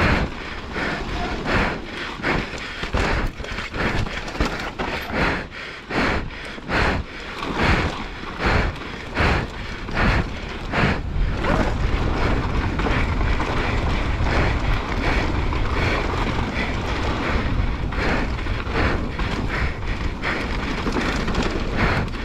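Specialized Demo downhill mountain bike ridden fast down a dry, rocky dirt trail: tyres rolling over loose dirt and stones, the bike knocking and rattling over bumps, and wind rushing over the microphone. The knocks come thick and irregular in the first half, then give way to a steadier rush of wind and rolling.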